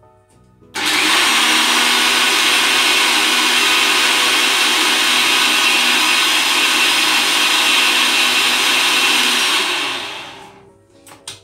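Countertop blender with a glass jar blending milk, eggs and melted butter: the motor starts abruptly about a second in, runs at a steady speed for about nine seconds, then winds down.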